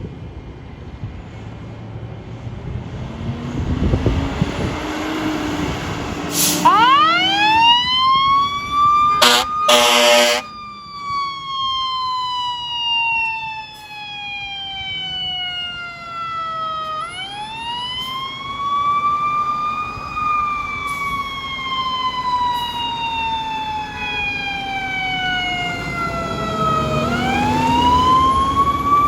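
Fire truck responding with its siren: the siren climbs about six seconds in and then wails in long, slow rise-and-fall cycles, with two short air horn blasts soon after it starts, over the truck's engine.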